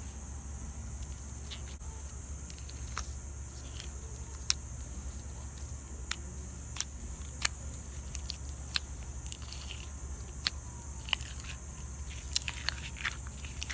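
Thick slime being worked by hand, giving irregular sharp clicks and pops as it is squished and stretched, over a steady low hum.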